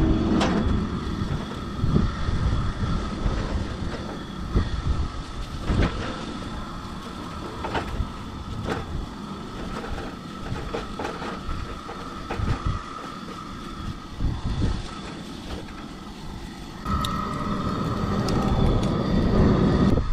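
A spatula scraping and tapping a frying pan of scrambled eggs on a two-burner camp stove: scattered short clicks over a steady hiss with a faint steady tone and an uneven low rumble. The hiss and tone grow louder near the end.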